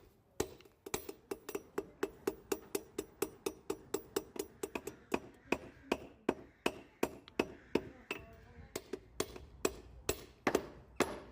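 Blacksmith's hammer striking metal on an anvil in a steady run of blows, about three a second, forging a toasting fork.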